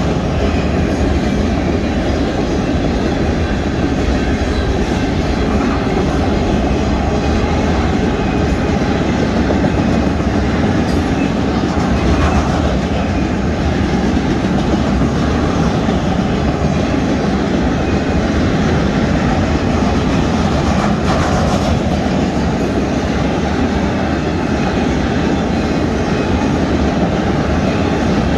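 Mixed freight train's cars rolling past: a steady, loud rumble of steel wheels on the rails, with a clickety-clack of wheels over rail joints.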